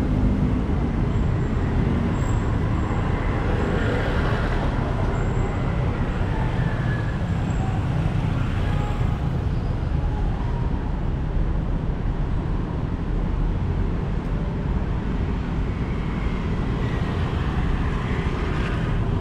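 Steady rumble of city street traffic, a constant low noise with no single event standing out.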